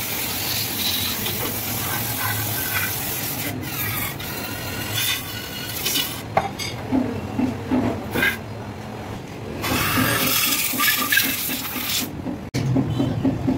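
Aerosol cleaner hissing in several spray bursts with short breaks, sprayed through a straw into the ports of a three-port aluminium manifold to clean out its EGR passages. The spraying stops about a second before the end.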